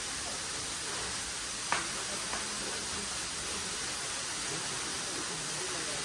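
Steady rushing noise of a low-flowing waterfall, with a sharp click a little under two seconds in and a fainter one just after.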